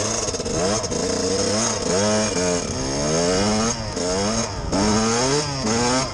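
Dirt bike engine being ridden hard on snow, the revs climbing and dropping again and again, about once a second, as the throttle is worked and gears change.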